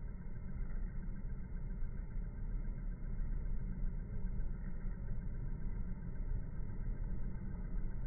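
Steady low rumble of outdoor background noise, with no separate calls or knocks standing out.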